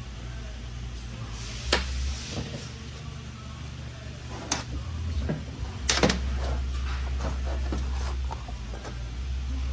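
Sharp knocks and clinks of 6L80 transmission parts being handled, three louder ones spread out and smaller clicks between, over a steady low hum.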